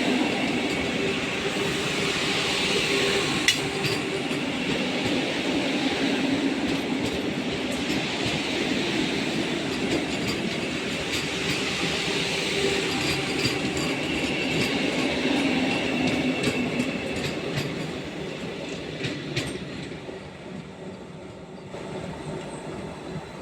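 Indian Railways train running on the rails, a steady rumble of wheels and carriages with a few sharp clicks, getting quieter over the last few seconds.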